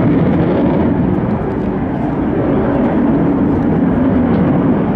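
F-16 fighter jet's single turbofan engine heard from the ground during a display pass: loud, steady jet noise.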